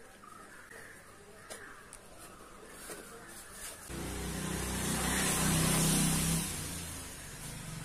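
A motor vehicle's engine cuts in about four seconds in, after faint clicks of handling. It swells with a rushing hiss and then settles to a steady, lower running sound.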